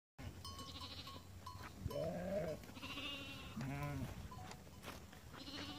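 A flock of sheep and goats bleating: two loud bleats, about two and three and a half seconds in, with fainter high-pitched calls around them.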